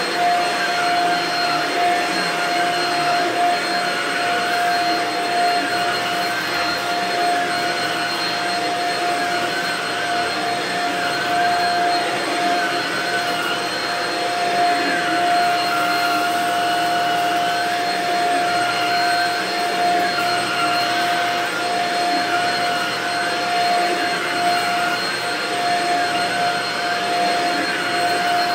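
Shark Rocket DuoClean stick vacuum running steadily with a constant whine while its floor head is pushed back and forth over a shag rug.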